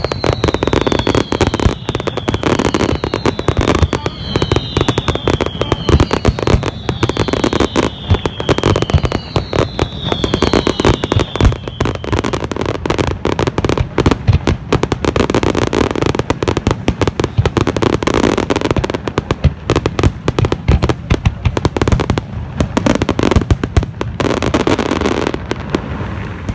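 Fireworks display: a dense, continuous barrage of aerial shell bursts and bangs. Repeated falling whistles run through the first half.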